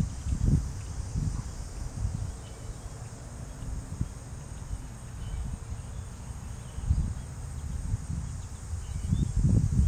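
A steady high-pitched chorus of late-summer insects such as crickets, under an uneven low rumble of wind on the microphone that grows stronger near the end.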